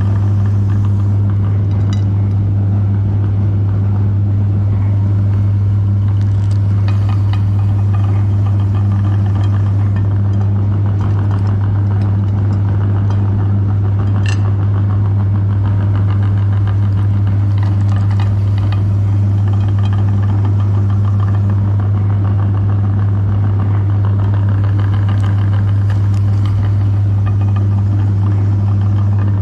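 Electric meat grinder running with a steady motor hum, with scattered crunching and crackling as chocolate bars are ground through it.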